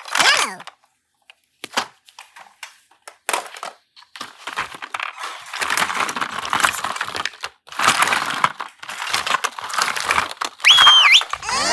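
Slime being squeezed and worked by hand, making irregular wet crackling and popping noises in short bursts. A short whistle-like tone comes in near the end.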